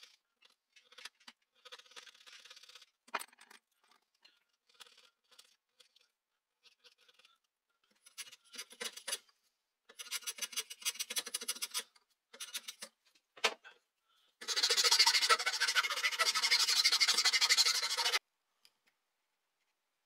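Hand tools cutting a small limewood blank clamped in a vise: light, scattered chisel scrapes, then short bursts of rapid scraping strokes as a block plane shaves the wood. A sharp click, then a louder steady scraping stretch of about four seconds near the end.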